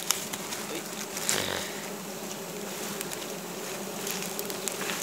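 Wild honeybees buzzing in a dense swarm around their open comb, a steady hum, with one short bump about a second and a half in.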